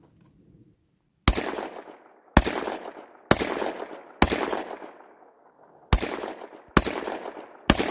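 Panzer EG200 semi-automatic 12-gauge shotgun fired seven times in quick succession, about a second apart with a slightly longer pause after the fourth shot. Each shot echoes briefly. The action cycles every round of the 1 1/4 oz Winchester Super X loads.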